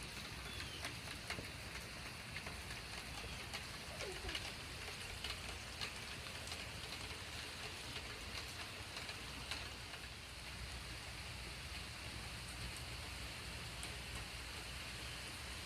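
Steady rain falling, with many scattered, irregular drop taps.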